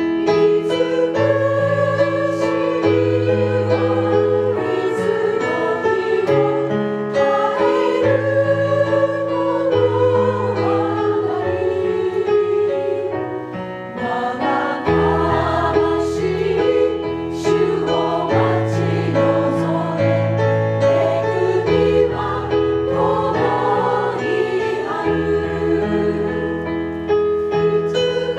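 Women's choir singing a hymn together in sustained phrases, over an instrumental accompaniment with a steady bass line.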